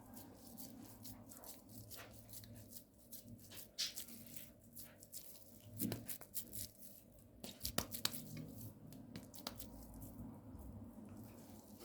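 Kitchen food-prep handling noises: packaging rustling and tearing, with scattered light clicks and knocks over a steady low hum.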